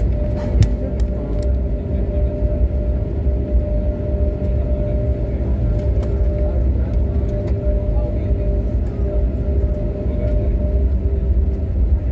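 Jet airliner cabin noise as the plane taxis before takeoff: a steady low rumble with two steady hums from the engines and cabin systems, and a few faint clicks about a second in.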